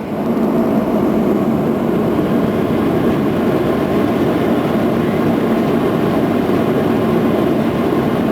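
Cabin noise inside a Boeing 737-700 during its takeoff run: the CFM56 jet engines at high thrust with a steady rumble. It swells at the start and then holds level.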